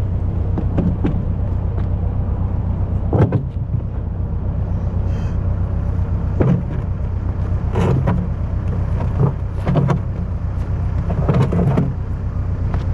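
An engine running steadily at a constant low pitch, with several short sharp knocks or clanks over it.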